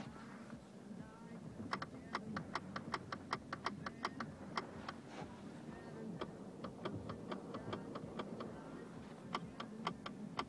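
Shift-lock latch (фиксатор) of a Mazda 3's automatic transmission selector clicking in Park with the brake pedal pressed, in runs of rapid clicks about five a second with short pauses between. The clicking happens only in Park, not in Drive, and is the knocking fault being shown.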